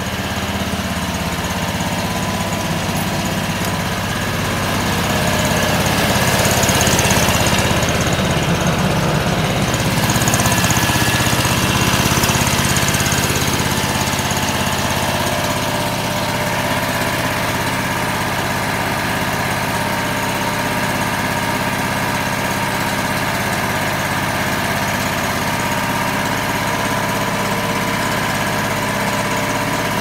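Small gasoline engine of a homemade band sawmill running steadily, driving the band blade as the saw head cuts through a walnut log. It grows somewhat louder from about five to thirteen seconds in.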